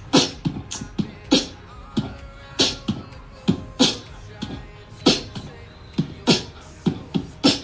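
A beatbox-style rhythmic beat: low kick-like thumps alternating with sharp, hissing snare-like strokes, about one to two hits a second.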